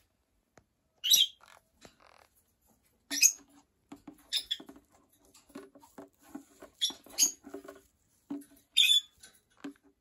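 Green-cheeked conure giving about six short, harsh squawks, with quieter rapid ticking and tapping between them.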